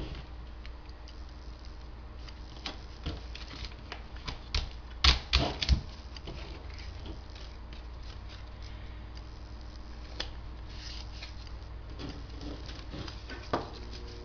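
Cardboard and duct tape being handled during crafting: irregular light clicks, taps and crinkles, with a louder cluster about five seconds in, over a steady low hum.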